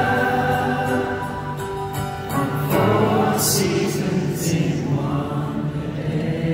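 Live band music heard from the audience in a large arena: acoustic guitars, drums and several voices singing together.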